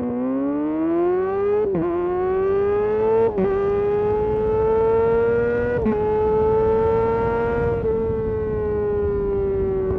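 2022 Kawasaki ZX-6R's 636 cc inline-four engine accelerating hard through the gears, its pitch climbing and dropping briefly at three upshifts, about 1.5, 3 and 6 seconds in. Near the end the pitch levels off and sinks slowly as the throttle eases.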